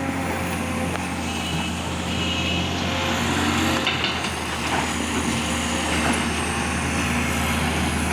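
Excavator's diesel engine running steadily, with a few brief high-pitched squeaks about two and four seconds in.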